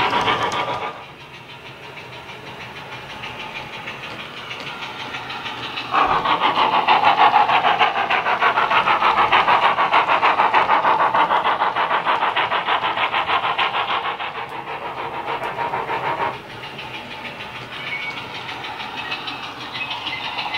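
Steam locomotive sound from a Wheeltappers DCC sound decoder in a Bachmann pannier tank model, played through its small onboard sugarcube speakers as the model runs: a steady, rapid run of exhaust chuffs. The sound grows louder about six seconds in as the loco passes close and drops back again near sixteen seconds.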